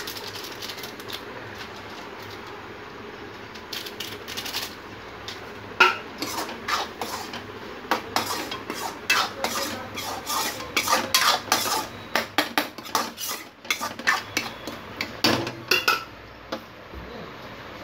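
A metal ladle stirs and scrapes a pan of simmering egg tadka, knocking and clinking against the pan over and over from about four seconds in until near the end, over a steady hiss.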